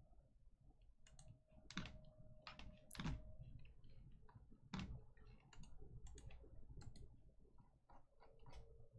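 Faint, irregular clicks and light taps, a dozen or so scattered over several seconds, over a low steady room hum.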